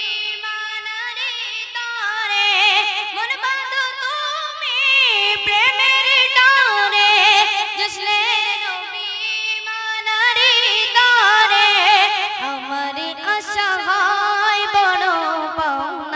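A boy singing a Bengali Islamic gojol (devotional song) into a microphone. His high child's voice draws out long, ornamented, wavering notes without clear words, and the line steps down to a lower pitch in the last few seconds.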